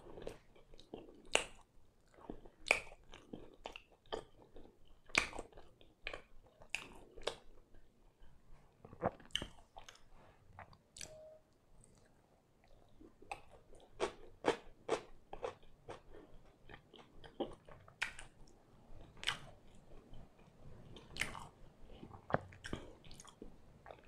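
A person biting and chewing pan pizza close to the microphone: irregular crunches from the crust with softer chewing in between, easing off briefly about halfway through.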